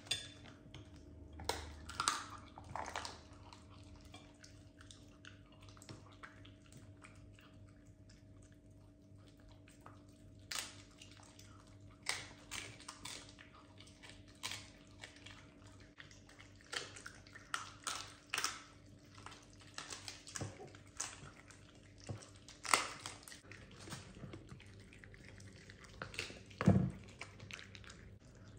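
Miniature dachshunds chewing raw chicken on the bone: irregular wet chewing and crunching of bone, with a few louder knocks, over a faint steady hum.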